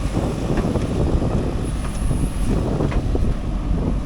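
Diesel engine of a JCB 3DX backhoe loader running steadily, with a few faint knocks from the working machinery.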